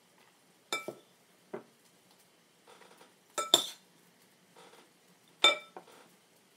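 A spoon clinking against a glass mixing bowl about six times while scooping out filling. Each strike rings briefly, and the loudest comes about halfway through. Soft rustles fall between the strikes.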